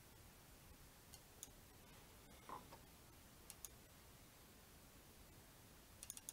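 Near silence with a few faint computer mouse clicks, including a quick double click about halfway through and a short run of clicks near the end.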